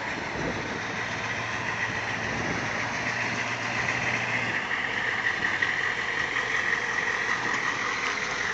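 Humvee's V8 diesel engine running at low speed as the truck crawls slowly across the lot, with a steady high whine that grows louder as it rolls closer.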